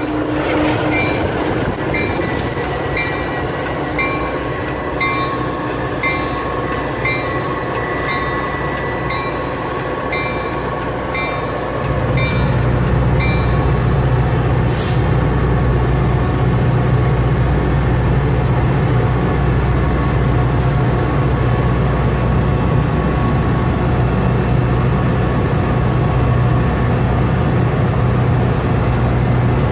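Metra EMD F40PHM-2 diesel locomotive at idle, with a bell ringing about twice a second. About 12 seconds in, the bell stops and the diesel engine throttles up to a loud, steady low rumble as the locomotive starts pulling its train out of the station.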